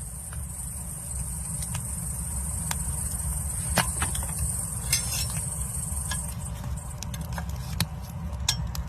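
Scattered sharp clinks and scrapes of a tool working in the ash of a wood-fired bath's firebox, over a steady low rumble. A high insect drone runs behind them and stops about six seconds in.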